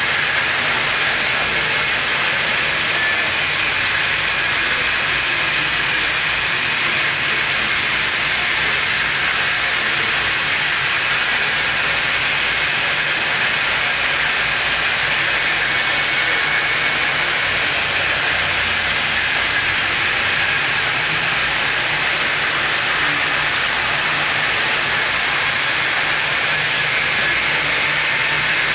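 Steady hissing noise, strongest in a high-middle band, over a faint low hum.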